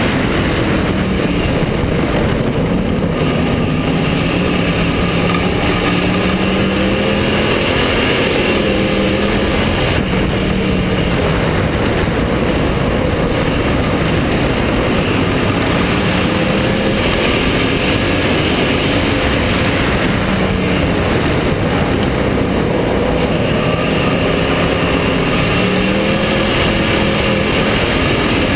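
Bomber-class dirt-track race car's engine heard from inside the car, revving up and easing off in a cycle that repeats about every ten seconds, over steady wind and tyre noise.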